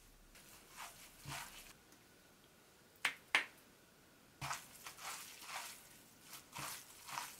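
Squeeze bottle of red chili-pepper paste squirting and squelching onto cooked noodles in a glass bowl, with two sharp clicks about three seconds in. Then the sauced noodles are mixed by a gloved hand, making wet, squishy sounds.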